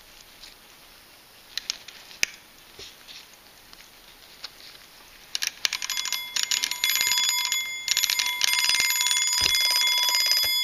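Mechanical wind-up alarm clock's bell ringing: its hammer strikes the bell rapidly, starting about halfway through, with a brief pause, and stopping at the end. A few sharp clicks come earlier.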